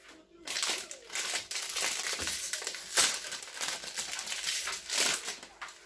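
Soft plastic packaging crinkling and rustling as it is handled and opened, with one sharp snap about three seconds in.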